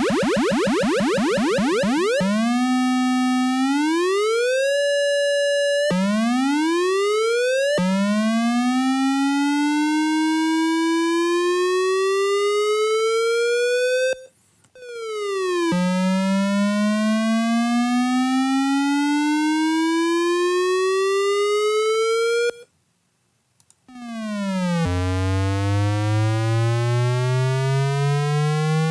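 Buzzy chiptune synthesizer tone climbing in pitch in several rising runs, each falling back down before climbing again like gear shifts: the classic video game race car acceleration. It opens with a quick downward sweep and breaks off into a short silence about two thirds of the way through.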